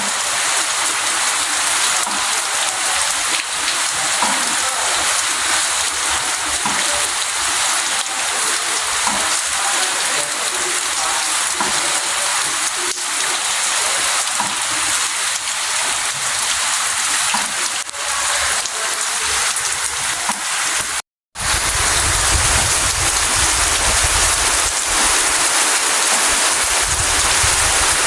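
Steady rain falling, a dense even hiss with scattered drips. About 21 s in the sound drops out for a moment, and after it the rain continues with a low rumble underneath.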